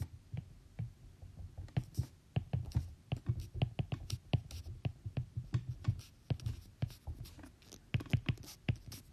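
Stylus writing on a tablet: irregular taps and light scratches of the pen tip as large letters are written.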